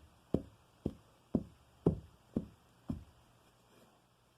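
A stick beating down repeatedly in knocks about two a second, six of them, stopping about three seconds in.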